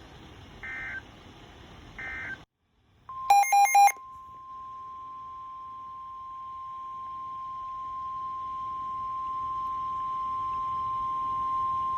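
Emergency Alert System tones from a NOAA Weather Radio broadcast. Two short data chirps close one warning. After a brief gap, a loud, harsh burst of SAME header data opens the next, followed by the steady 1050 Hz weather radio alert tone held for about eight seconds and slowly getting louder.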